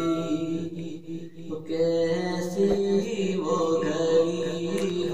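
A young man's voice chanting a naat, an Urdu devotional song in praise of the Prophet, unaccompanied in long held, ornamented lines. There is a short pause for breath about a second in.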